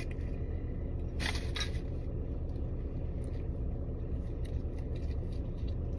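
Steady low rumble inside a car cabin, with a brief rustle about a second in and a few faint soft clicks as glittery putty is handled.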